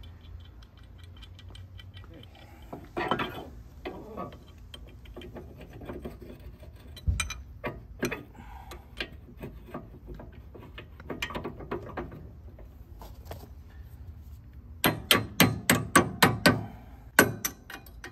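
Scattered metal clinks and clicks of hand tools against a stump grinder's steel traction hub, then near the end a quick run of hammer taps on steel, about four a second, tapping a new bolt into the hub.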